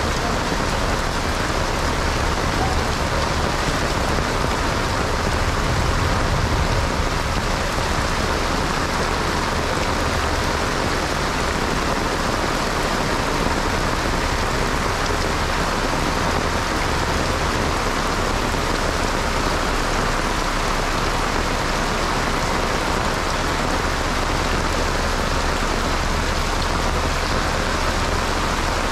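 Heavy rain pouring steadily onto a paved road, a dense even hiss with a steady low rumble underneath.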